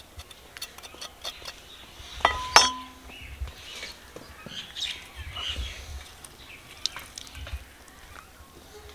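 A sharp clink on a stainless-steel mixing bowl about two and a half seconds in, with a brief metallic ring, among lighter clicks and handling sounds from working over the bowl.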